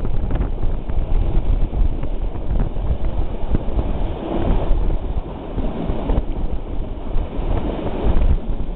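Wind buffeting the microphone over the steady rumble of a moving train, heard from a carriage window, with a few faint knocks from the wheels.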